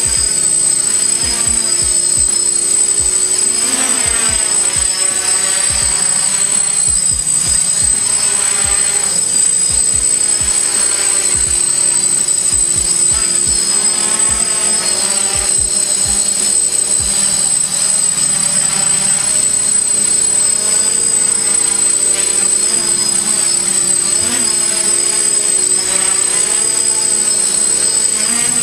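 DJI F550 hexacopter's six brushless motors and propellers whining in flight, the pitch rising and falling again and again as it is steered and held in a hover.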